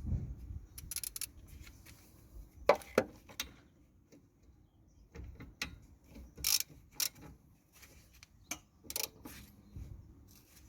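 Torque wrench ratcheting as the top bolt of a rear brake caliper is tightened: a run of scattered metallic clicks and knocks, with a sharper pair about three seconds in and more around the middle and near the end.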